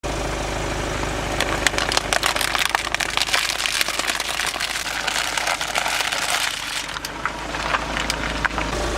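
A car's engine running at a low idle while things crackle and crunch under its tyre, a dense run of sharp cracks that thins out to scattered ones near the end.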